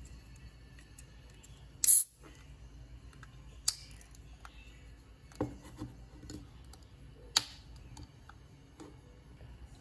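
Fingers working the metal ring-pull tab of a small can of Nescafé coffee: a loud sharp crack about two seconds in, then scattered clicks and taps of the tab, two of them sharper than the rest.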